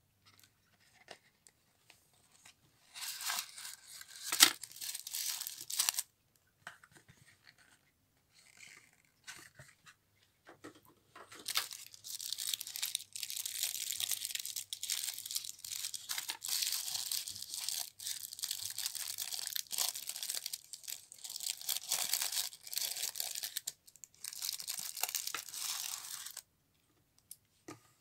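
Black tissue paper crinkling and rustling as it is unfolded by hand: a short spell a few seconds in with one sharp crackle, then a longer spell through most of the second half.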